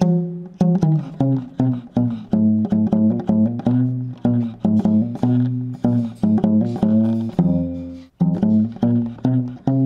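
Homemade one-string bottle guitar, a plastic bottle body on a pipe neck with a single string, plucked in a quick run of low notes that keep changing pitch. The playing stops briefly about eight seconds in, then carries on.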